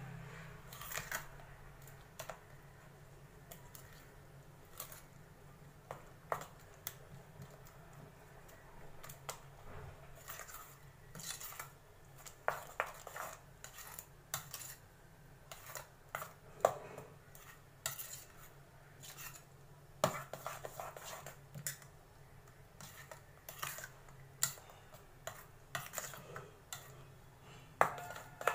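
Metal spoon stirring a thick mawa and mango-pulp mixture in a stainless steel bowl, with irregular clinks and scrapes of spoon against the bowl.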